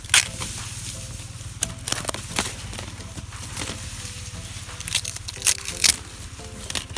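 Knife blows chopping through sugarcane stalks: a handful of sharp cracks at irregular intervals, one near the start, three in quick succession a little past a second and a half in, and two loud ones near the end.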